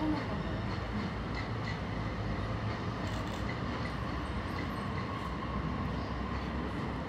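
Steady low rumble of trains running on the tracks below, heard at a distance from high above.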